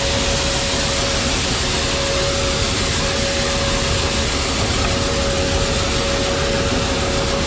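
Grain dryer running with its fan and burner on: a steady rushing noise with a constant whine over it.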